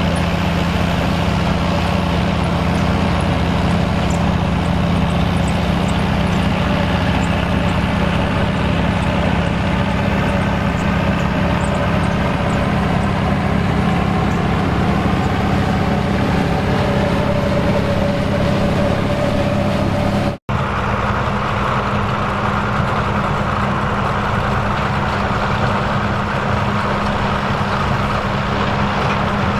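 Turbocharged Fiat 800 tractor's diesel engine running steadily under load while driving a sugar beet top-cutter. The sound drops out for an instant about two-thirds through, then returns with more hiss in the mix.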